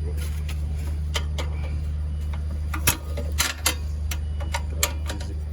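Irregular metallic clicks and knocks of a wrench working at a tight bolt on a petrol generator, the loudest a sharp knock about three seconds in, over a steady low hum.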